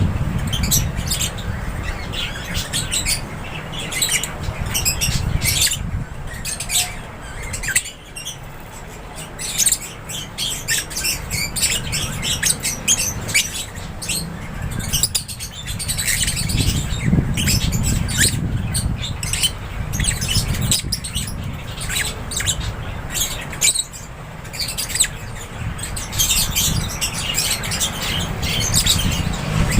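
A flock of lovebirds chirping and squawking nonstop, many short high-pitched calls overlapping, over a steady low rumble.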